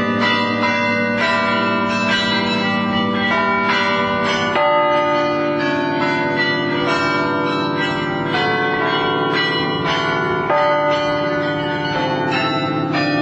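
The carillon bells of the Bruges Belfry playing a tune, struck about twice a second, with each note ringing on over the next.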